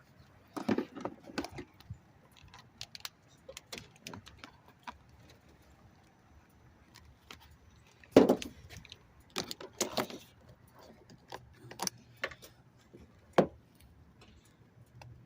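Scattered clicks and knocks of handling work, with a loud knock about eight seconds in and a sharp one near the thirteenth second, over a faint steady hum.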